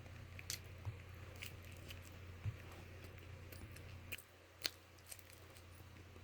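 Sparse, light, irregular clicks of fingers tapping on an iPad while a password is typed on its touchscreen keyboard, over a faint steady low hum.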